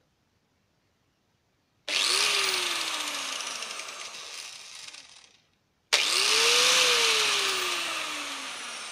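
Electric angle grinder switched on twice in short bursts, about four seconds apart. Each time the motor and disc spin up quickly to a high whine, then coast down with a falling pitch as it is released. The grinder runs normally.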